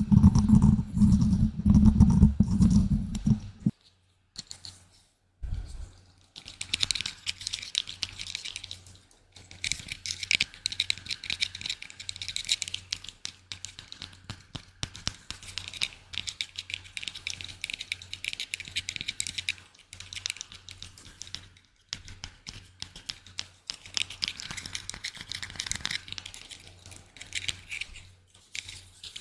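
ASMR trigger sounds: a burst of rapid, low, thudding taps for the first few seconds, then after a short pause a long run of fine crackly scratching and clicking, stopping briefly now and then.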